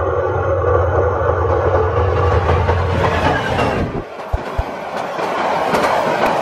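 Bangladesh Railway 2700-series diesel locomotive approaching with a steady low engine drone; about four seconds in the sound changes abruptly to passenger coaches passing close by, wheels clattering over the rail joints with two heavy knocks.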